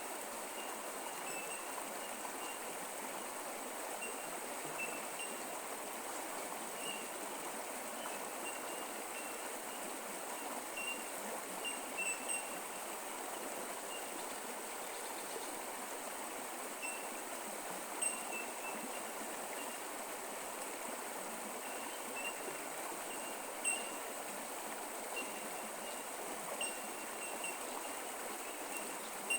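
Bush creek water running steadily. A thin, steady high tone and short high chirps come and go on top of it.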